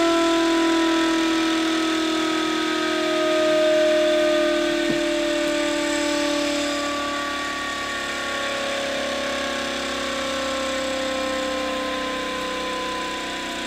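Muller magnet-motor replication running at a few thousand RPM on its transistor driver, giving off a steady whining tone with several overtones that slowly falls in pitch as the rotor gradually slows.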